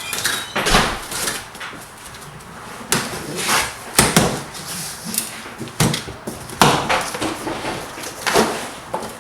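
Cardboard box being cut and opened with a knife: a string of irregular scrapes and rustling knocks.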